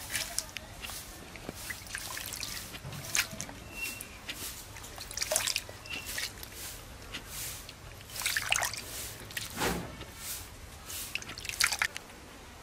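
Water dripping and trickling off handfuls of small wet mola fish lifted from their soaking water and dropped onto a ridged clay bowl, in irregular wet splats and drips.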